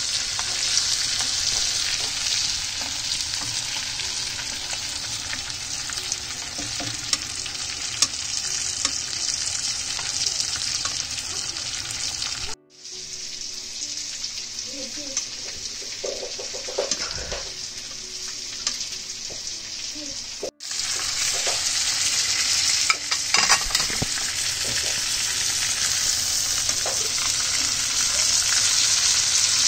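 Ribeye steak sizzling as it sears in hot oil in a frying pan: a steady crackling hiss with occasional small clicks. It drops out abruptly twice, is quieter between the dropouts, and grows louder again toward the end.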